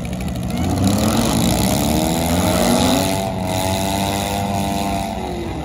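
Demolition derby cars' engines running and revving, the pitch climbing over the first few seconds and dropping back near the end.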